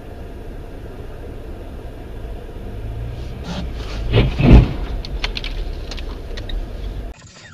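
A car's engine and road noise running as a steady low rumble that builds up, with one loud thump about four and a half seconds in and a few sharp knocks after it.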